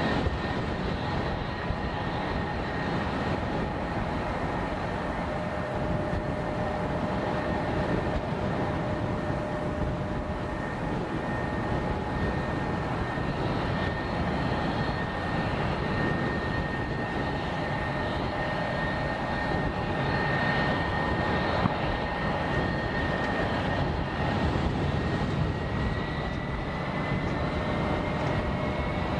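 Airbus A320-232's IAE V2500 turbofans running at low power while the airliner taxis and turns: a steady jet whine over a wide rumble. The whine begins to rise in pitch near the end.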